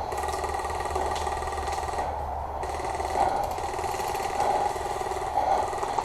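Airsoft electric gun (AEG) firing on full auto: a fast rattling buzz in two long bursts, the second starting about two and a half seconds in after a brief pause.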